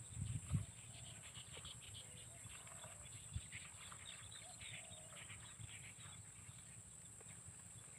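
Faint rural ambience: scattered bird chirps and a few short distant animal calls over a steady high-pitched hum. A couple of low bumps, the loudest about half a second in and another about three seconds in.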